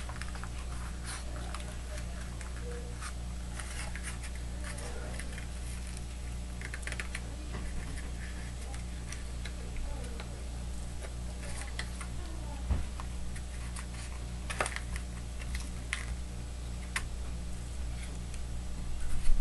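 Scattered light clicks and taps of hands handling a taped-together set of glass mirror strips, adjusting it, over a steady low electrical hum.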